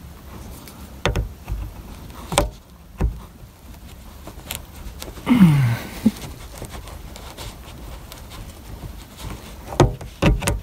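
A flat pry tool clicking and scraping against the edge of a plastic dome-light lens as it is worked into the seam, in scattered sharp ticks and knocks. About halfway there is a short falling vocal sound, a sigh of effort.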